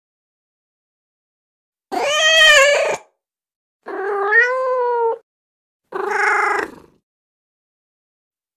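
Domestic cat meowing three times, each call about a second long, played from a cat-sound soundboard app, with dead silence between the calls.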